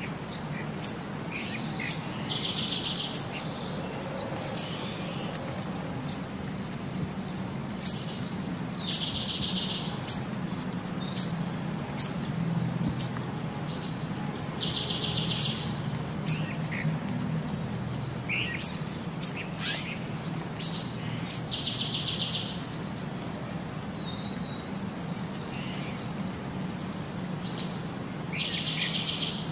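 Bird chirps and a short high trill repeating in the same pattern about every six seconds, a looped recording that runs on unchanged across the cuts between clips, over a low steady hum.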